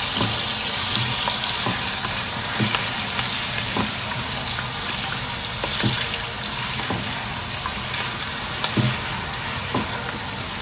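Bratwurst pieces sizzling steadily in hot liquid butter in a stainless steel pot, with short pops and knocks every second or so as a silicone spatula stirs them.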